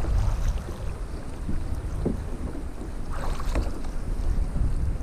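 Wind buffeting the microphone in a low, steady rumble, with water lapping against a plastic kayak hull; a short splashy rush a little over three seconds in.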